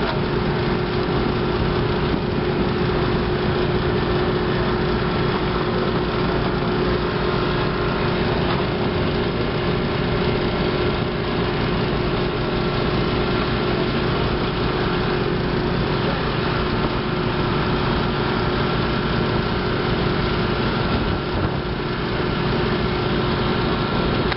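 Small gasoline engine running steadily at constant speed: the hydraulic power unit that drives the Hurst rescue tools.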